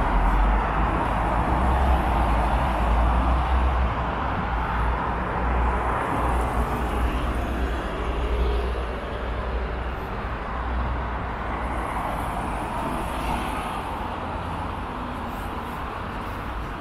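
Street traffic on a wide city avenue: cars and a bus passing, a steady tyre-and-engine rumble that is loudest over the first half and eases off toward the end.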